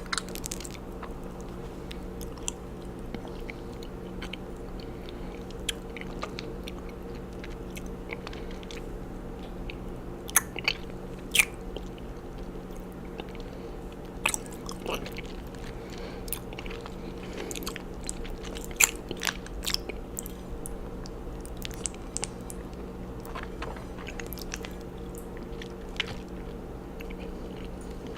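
Mouth chewing raw honeycomb close to the microphone: sticky, wet smacks and clicks of wax and honey, with sharper smacks every second or few. A steady low hum runs underneath.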